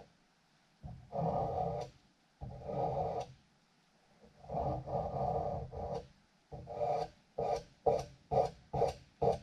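Repeated rasping strokes of a hand tool worked back and forth on metal. The first strokes last about a second each, with pauses between them; from about seven seconds in they become short and quick, about two a second.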